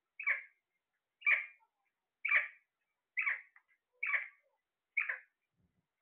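Caged parakeet calling: six short squawks, evenly spaced about one a second.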